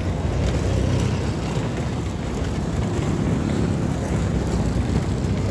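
Steady rumble of road traffic as cars pass close by, with wind buffeting the microphone.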